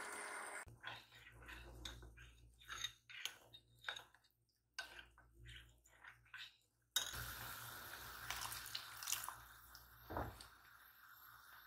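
An immersion blender stops just after the start. A spoon then clinks and scrapes against a ceramic bowl as it stirs cornflour slurry, in short taps with pauses. After that, a silicone spatula stirs the slurry into a thin sauce in a nonstick pot, a soft wet sloshing with an occasional knock.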